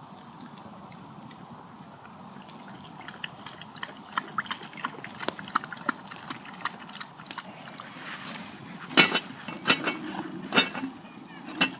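Campfire crackling with many small pops, then four louder sharp knocks or clinks in the last few seconds.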